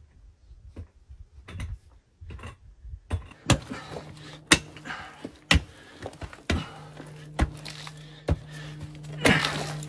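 A few scattered knocks of a shovel digging into dirt. About three seconds in, background music comes in with a slow beat of about one hit a second, and a held low note joins it later.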